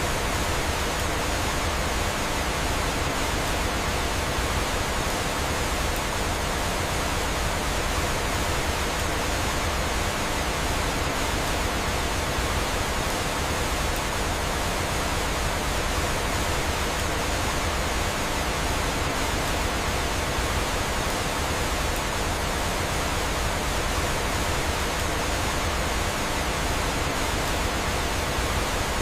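Steady, even rush of flowing water from a waterfall, unbroken and unchanging throughout.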